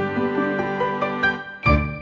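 Background music: a soft instrumental melody of held notes, with a louder note or chord struck near the end.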